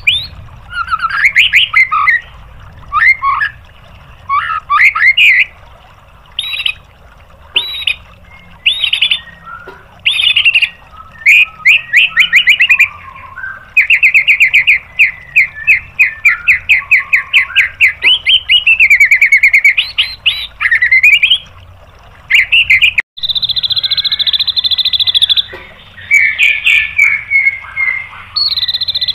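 White-rumped shama (murai batu) singing a loud, varied song of whistled phrases. A long run of fast repeated notes lasts about ten seconds. After a brief cut comes a steady high whistle.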